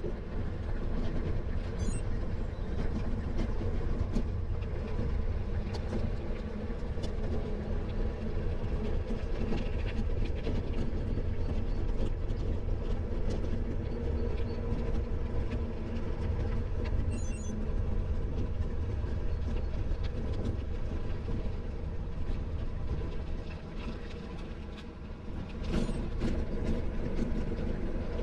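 Bicycle being ridden, heard from on the bike: a steady low rumble of tyres and wind with light rattles and clicks. The noise eases briefly about three-quarters of the way through, then picks up again.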